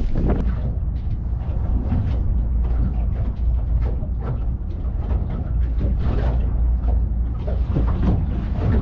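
Steady low rumble of a fishing boat's idling engine, with faint scattered knocks and rustles of handling on deck.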